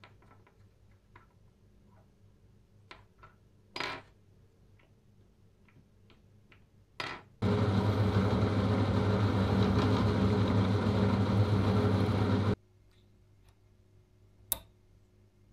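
A small machine spindle motor runs steadily for about five seconds, starting and stopping abruptly, with a small cutter in it working the hole of a small metal door-bell part held against it by hand. Before it come a few light clicks of the metal parts being handled, and near the end there is one sharp metal click.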